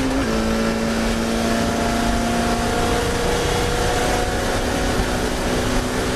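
Classic Mini racing car engine running hard at high revs. Its pitch drops once about a quarter second in, then holds steady.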